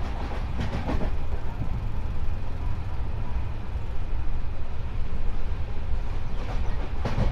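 Indian Railways passenger coach running along the track, heard from an open window: a steady low rumble of the wheels on the rails, with short bursts of wheel clatter about a second in and again near the end.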